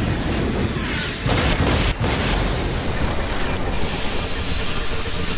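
Sound effect of a large energy blast and explosion from a sword special attack: a loud, sustained wash of noise with a deep rumble underneath.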